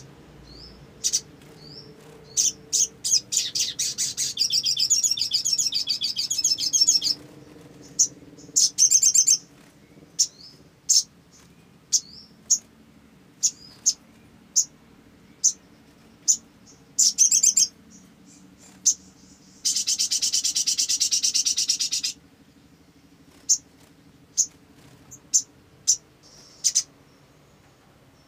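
Olive-backed sunbird calling: sharp, high single chirps about once a second, broken by a few fast rattling trills, the longest about four seconds in and about twenty seconds in.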